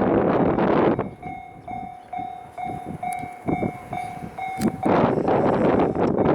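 A freight train of tank cars passing a level crossing, a loud rushing, rumbling noise that drops away for about four seconds and then comes back. In the quieter stretch the crossing's warning bell rings, a ding about twice a second.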